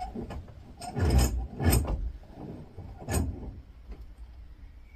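Metal knocks and clunks from working a CO2 fire extinguisher's brass valve head at a bench vise. Three louder knocks fall between about one and three seconds in, with lighter clicks around them.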